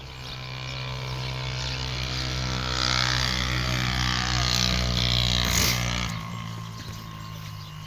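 A motor engine running with a steady low drone, growing louder over a few seconds and then dropping away suddenly about six seconds in, leaving a fainter hum.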